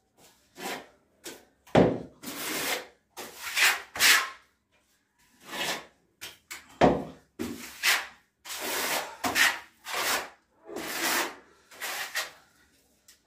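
Steel notched trowel scraping tile adhesive out of a tub and spreading and combing it onto a cement-plastered wall: more than a dozen short scraping strokes, irregularly spaced, each under a second.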